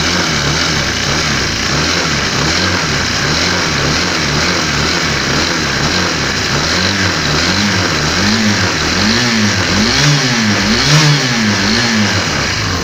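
Honda PCX 150 single-cylinder scooter engine running with the CVT pulley removed, first steady, then from about halfway revved up and down roughly once a second, the swings growing larger near the end. The sound is clean, without the rough growl the engine had before the fix.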